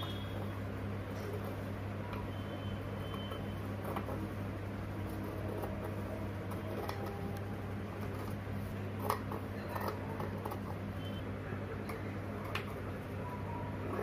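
Scissors cutting through fabric, with a few sharp snips and handling clicks over a steady low hum.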